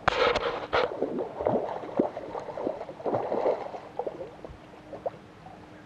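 A hooked fish splashing and thrashing at the water surface on the line. There is a sudden loud splash at the start, then irregular smaller splashes and gurgles that die away near the end.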